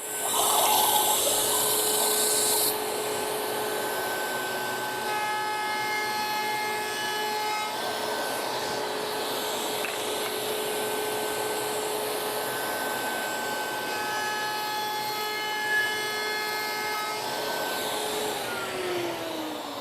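Table-mounted router running at a steady high whine with dust extraction drawing, and a louder rush of cutting through the wood in the first few seconds. The router is switched off near the end, its whine falling in pitch as the motor spins down.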